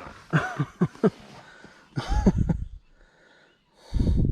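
A man's heavy breathing and short wordless vocal sounds in excitement, with loud low buffeting on the microphone about two seconds in and again near the end.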